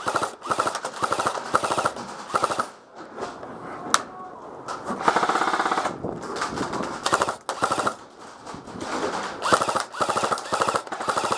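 Airsoft rifles firing rapid full-auto bursts, the shots in quick rattling runs. There is a lull in the middle with one sharp snap, then more bursts near the end.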